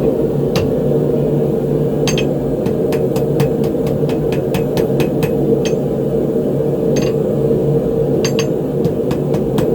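Hand hammer striking a hot steel ring on the anvil to forge-weld its joint: about twenty ringing blows, one alone, then a quick run of several a second, then scattered strikes. Under it the steady roar of a propane forge burner.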